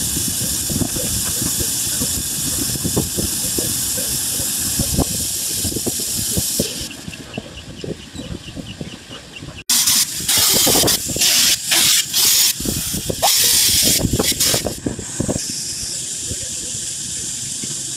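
Grinding wheel working the helical lobes of a screw air compressor rotor under flowing coolant: a steady loud hiss with scattered ticks. After about seven seconds it drops to a quieter stretch with faint rapid clicking, then comes a run of loud hissing blasts that start and stop about six times, ending in a softer steady hiss.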